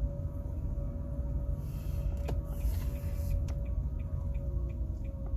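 Steady low rumble of a car cabin while driving slowly, with a faint steady hum. There is a sharp click a little over two seconds in, a brief hiss around it, and from about the middle a faint regular ticking about twice a second.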